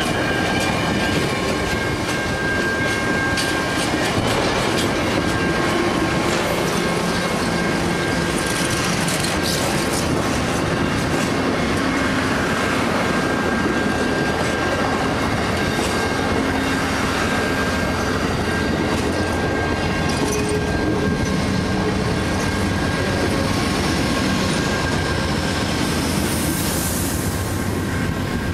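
Amtrak passenger cars rolling past close by, the wheels clattering over the rails in a steady loud rumble with a thin steady high tone running over it. The last car clears near the end.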